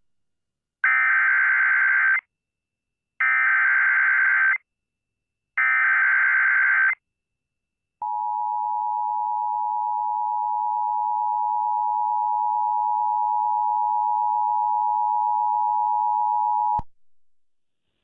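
Emergency Alert System activation: three short bursts of warbling SAME header data tones, then after a gap the steady two-tone EAS attention signal, held about nine seconds before it cuts off sharply. It opens a relayed severe thunderstorm warning.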